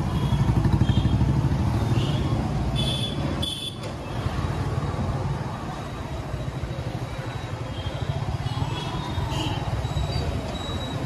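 Motorbike engine running with a steady low rumble under busy street traffic, loudest about a second in and easing briefly a few seconds later. Short high-pitched toots come from other traffic about three seconds in.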